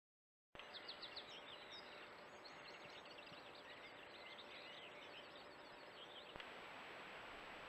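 Faint birdsong in the open air, several small birds chirping and trilling in quick phrases, over the steady hiss of a trail camera's microphone with a thin high whine.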